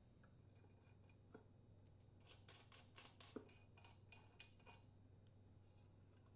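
Near silence with faint metallic clicks and ticks, a quick run of them a little past the middle, from a flywheel puller and wrench being worked and the aluminium flywheel being lifted off a Briggs & Stratton small engine's crankshaft.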